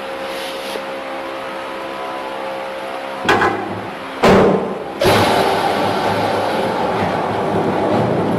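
Automatic paper core cutting machine running with a steady hum, then two loud bangs about a second apart, after which it runs louder and rougher.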